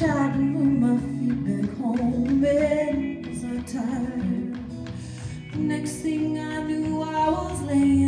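Live band music with singing: acoustic and electric guitars, bass and drum kit, joined by Dene hand drums, with regular drum hits throughout.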